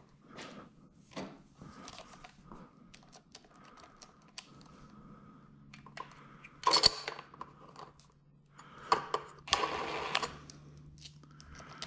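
Bosch cordless driver spinning in two short bursts, about seven seconds in and again near ten seconds, driving a screw through a small metal bracket into a plastic motorcycle fender. Light clicks of the screw and parts being handled come before.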